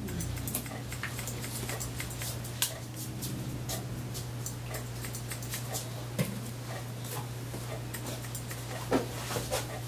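Hair-cutting scissors snipping short hair in quick, irregular clicks, a few of them sharper, over a steady low hum.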